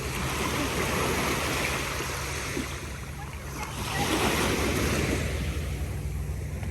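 Ocean surf washing onto the beach, swelling twice, with wind rumbling on the microphone.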